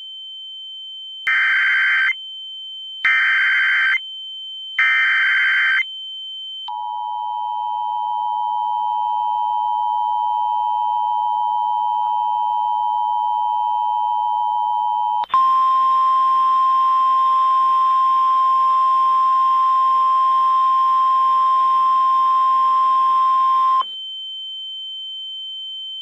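Emergency Alert System tones. First come three short bursts of the warbling SAME data header. Then the steady two-tone EAS attention signal sounds for about eight seconds, followed by a single steady alert tone over hiss for about eight more. A thin, high, steady tone runs beneath the whole sequence.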